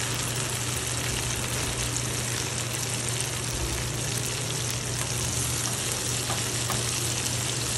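Tortang talong (egg-battered eggplant) frying in hot oil in a pan: a steady sizzle with fine crackles, over a steady low hum.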